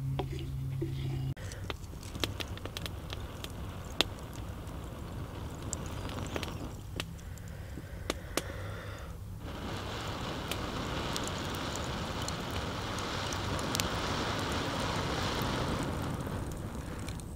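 Glowing wood embers crackling with scattered sharp pops, while breath is blown steadily onto them from about ten seconds in, making a long hiss that swells and then eases near the end. The coal is being fanned to burn out a wooden bowl in hard wood.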